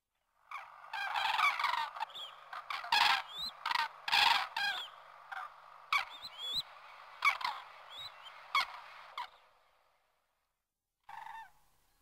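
A flock of common cranes calling in flight: many overlapping loud trumpeting calls starting about half a second in. The calls fade out shortly before ten seconds, and one short call comes near the end.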